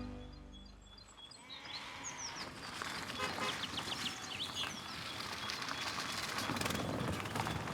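Music fading out, then outdoor ambience with animal calls, including a run of short, high chirping calls about two to three and a half seconds in, and scattered light clicks toward the end.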